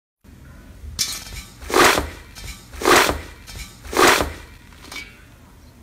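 Foamy slime being squished and pressed: a softer squish, then three loud, wet squishes about a second apart, with quieter squishing after.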